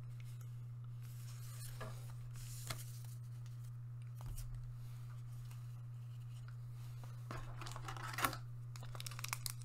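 Quiet room with a steady low hum and a few faint taps, then a foil trading-card booster pack crinkling and tearing as it is handled and opened, mostly in the last two seconds.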